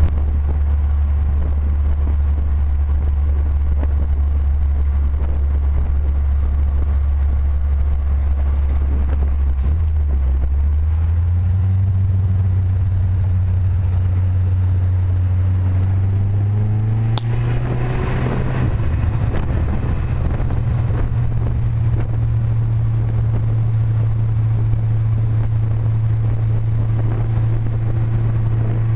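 A car engine running steadily with a low drone. Its pitch steps up twice, about ten and seventeen seconds in, and a single sharp click comes at the second step.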